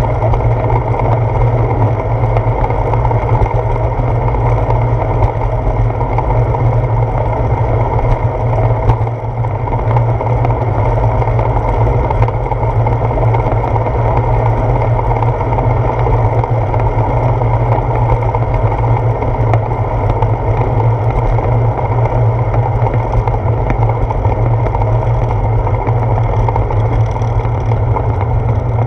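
Steady wind rush and rolling rumble on a handlebar-mounted GoPro Hero 4's microphone as the bicycle rides along a concrete path, heaviest in the low end and unbroken throughout.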